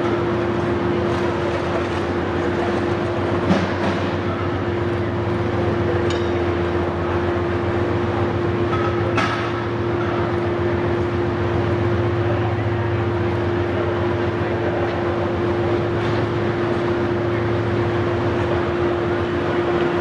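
Steady loud machine drone with a constant hum, as at a working foundry, and one sharp knock about three and a half seconds in.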